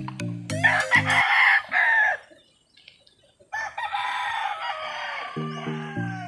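Game-fowl roosters crowing twice: a loud crow about half a second in, then a longer crow from about three and a half seconds. Background music with a steady beat plays at the start and comes back near the end.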